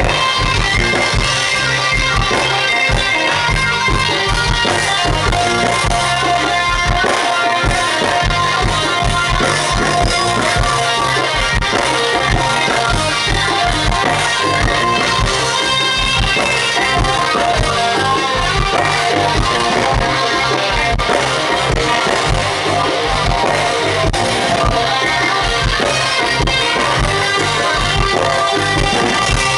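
Live band playing: electric lead guitar over bass guitar and drum kit, loud and steady throughout.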